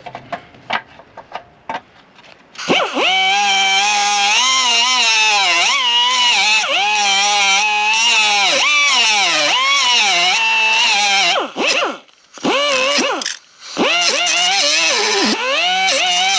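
High-speed power cutting tool, likely a cut-off wheel, cutting through the steel press pins of a door hinge: a loud whine that sags and recovers in pitch as the wheel bites, with a hissing edge and two short breaks near the end. A few light clicks come before it starts.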